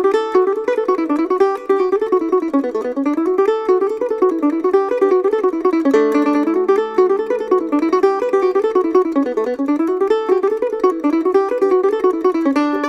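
Fast riff flatpicked on a Gold Tone GM-6+ six-string mando-guitar: a quick line of single notes that runs up and down in repeated patterns, with a low note held under the line from about halfway through.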